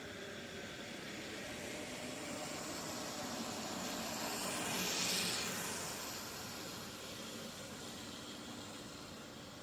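Trailmech rear hub freewheel buzzing as the bicycle coasts past. It grows louder to a peak about five seconds in, then fades.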